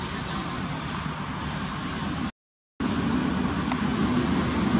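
Steady low background rumble with no distinct events, cutting out to complete silence for about half a second partway through, then returning slightly louder.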